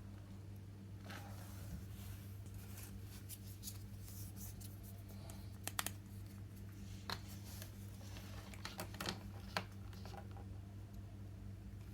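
Faint handling sounds of a toy kitchen set being unboxed: scattered light clicks and rustles of small plastic pieces and packaging, over a steady low hum.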